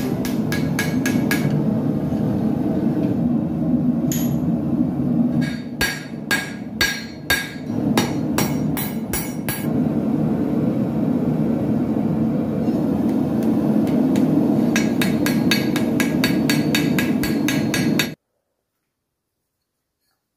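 Hammer blows on hot steel on an anvil, forge-welding an axe head, in three quick runs of strikes with the anvil ringing after each blow. A steady low drone runs underneath. Everything cuts off suddenly near the end.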